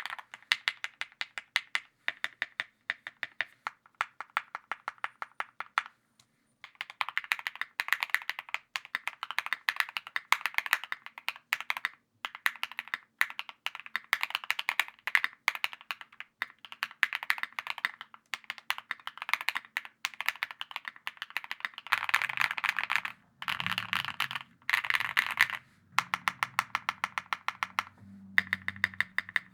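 Fast typing on a Cycle7 custom mechanical keyboard with an aluminium plate, keys clacking in quick runs. The typing stops for about a second around six seconds in, with shorter gaps later.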